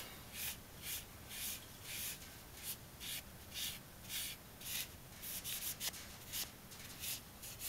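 A fluid-soaked sheepskin cleaning cloth rubbed back and forth along the steel blade of a Gerber Bear Grylls Ultimate knife, with soft brushing strokes about twice a second, a few quicker ones in the middle.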